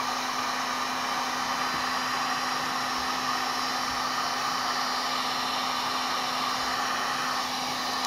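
Electric heat gun running steadily: a rush of hot air over a steady motor hum as it shrinks heat-shrink tubing over a wire splice. It cuts off right at the end.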